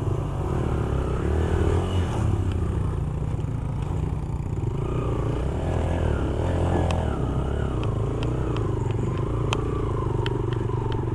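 Motorcycle engine running at low speed over a loose rocky trail, its pitch rising and falling slightly with the throttle. Stones clatter under the tyres, with a few sharp knocks in the second half.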